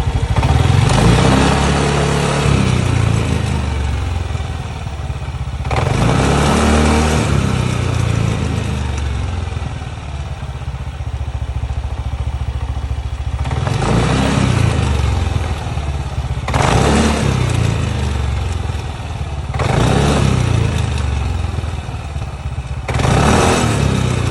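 Yamaha NMAX 160 scooter's single-cylinder engine running, with the throttle opened and let off about six times, and a noise from the wheel whose cause is not known.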